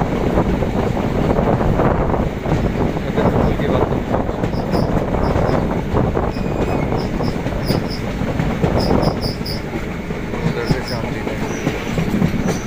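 Passenger train coach running at speed, heard from its open doorway: steady rumble of wheels on the rails mixed with wind rush.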